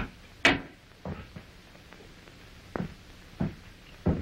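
A wooden door shutting with a sharp bang about half a second in, followed by a few soft, spaced thuds.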